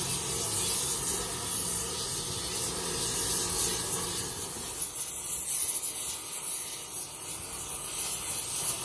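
Gas welding torch flame hissing steadily against the cast iron tractor transmission housing, heating the crack for a flame spray weld repair.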